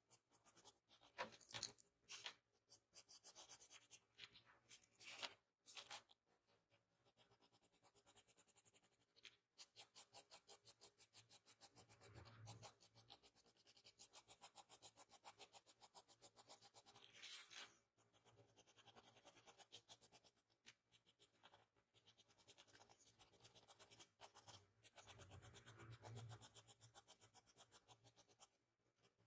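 Faint scratching of a mechanical pencil's lead on paper in quick, closely spaced short strokes, shading fine hair strands, with a few louder strokes in the first few seconds.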